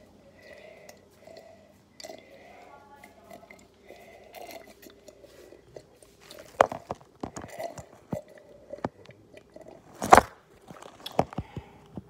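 Close-up gulping and swallowing of water from a glass: irregular wet mouth clicks and gulps with small knocks, growing busier in the second half. The loudest click comes about ten seconds in.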